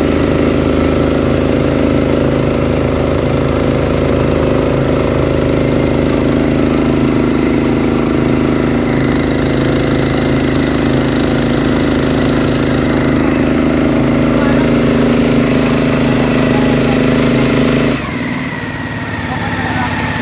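Motorboat engine running steadily, then its sound drops abruptly near the end.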